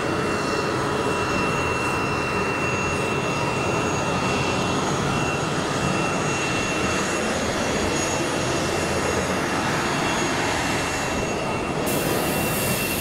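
Steady airport ramp noise: aircraft engines running, a broad rumble with a thin, steady high whine. About twelve seconds in the sound changes abruptly to a brighter noise.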